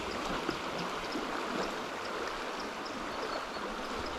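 Fast-flowing river rushing over a shallow riffle: a steady wash of water, the river running high and very strong.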